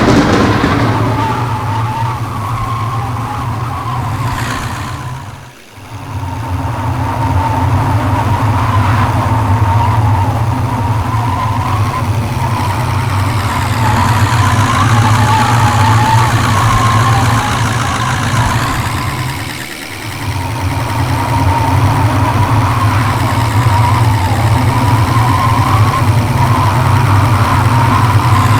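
A car driving along, with steady road and engine noise that briefly drops away twice.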